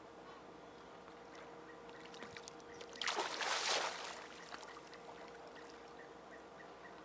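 A hooked fish thrashing at the water's surface beside the boat as it is reeled in: one loud burst of splashing lasting about a second, starting about three seconds in.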